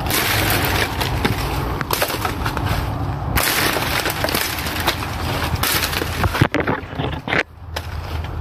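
Footsteps crunching through dry leaf litter and twigs while pushing through brush, a dense crackle of small snaps and rustling, briefly dropping off near the end.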